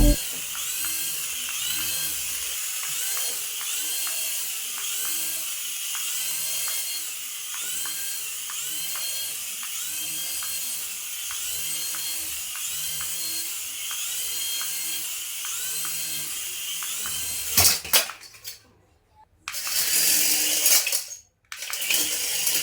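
High-pitched electric whirring from a remote-control toy plane, pulsing in a regular repeat a little more than once a second. Near the end it cuts off with a click, then comes back in two short loud bursts.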